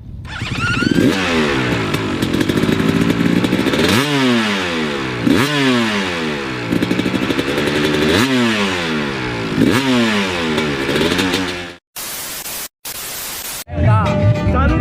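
Trail motorcycle engine revved over and over, its pitch climbing sharply and sliding back down every second or so. Near the end it cuts off into two short bursts of hiss separated by brief silences.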